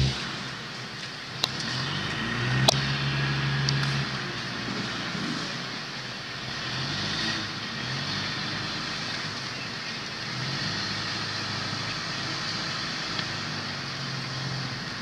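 Engine noise from passing motor vehicles, a low drone that swells and fades several times. Two sharp clicks come in the first three seconds.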